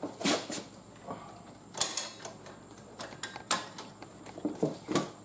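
A few sharp metal clicks and clunks from a BCS walk-behind tractor's handlebars and control levers as they are handled and the machine is tilted up, the loudest about two seconds in.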